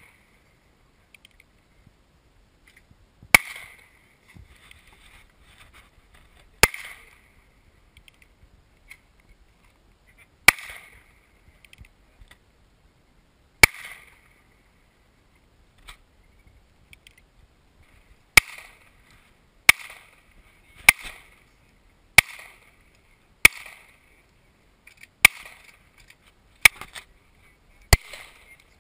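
Handgun shots fired one at a time: four shots spaced several seconds apart, then eight more at a quicker, steady pace of roughly one a second.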